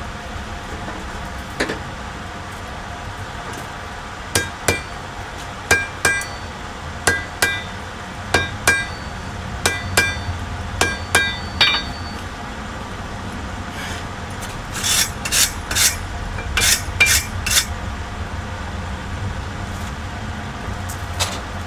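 Hand hammer striking red-hot spring steel held in tongs on an anvil: about fifteen sharp, ringing blows from about four seconds in, then a quicker group of about seven duller blows a little later, working a forge-welded joint. A steady low noise from the gas forge burner runs underneath.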